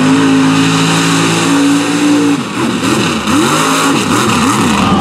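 Unlimited-class mud racing truck's engine at full throttle as it tears through a dirt pit. It is held at high revs for about two seconds, then the revs swing rapidly up and down, about twice a second.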